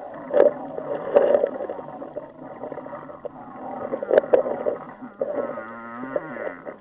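Muffled water movement heard through a camera held underwater, with sharp clicks and knocks, a few about a second in and two close together after four seconds, and a wavering tone near the end.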